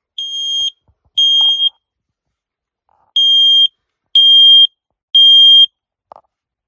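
Smoke alarm sounding its test signal: loud, high, steady half-second beeps in the three-beep fire-alarm pattern. The last two beeps of one group of three, a pause of about a second and a half, then three more, after which it stops.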